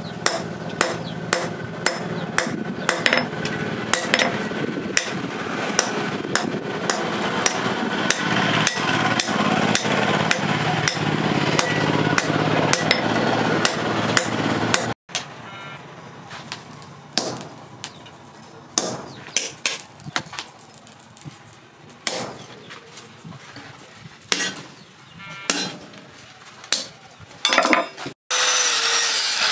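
Hand hammer striking hot leaf-spring steel on a steel post anvil, about two to three ringing blows a second for the first half. Then sparser metal knocks and clanks as the blade is worked with a bending bar, and near the end an angle grinder running as it grinds the blade.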